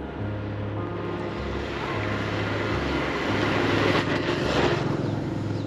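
Background music with a steady low bass line that changes note about every second. Over it, a rushing noise builds, is loudest about four to five seconds in, then drops away sharply near the end.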